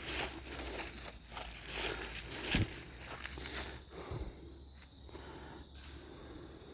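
Irregular footsteps and rustling, with a soft thump about two and a half seconds in.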